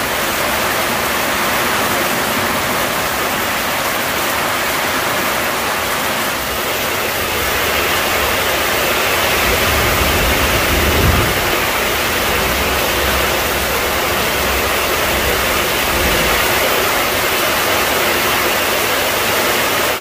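Heavy tropical downpour: a dense, steady hiss of rain falling on a garden and swimming pool. A low rumble joins in for several seconds partway through.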